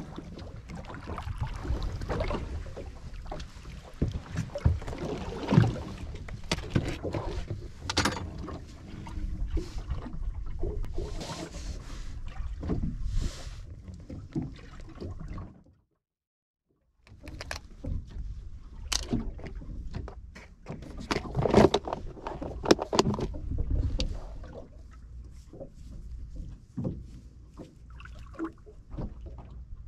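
Irregular knocks, clicks and rustling from handling a landed fish and fishing tackle aboard a small boat, over a low rumble of wind and water noise. The sound drops out completely for about a second just past the middle.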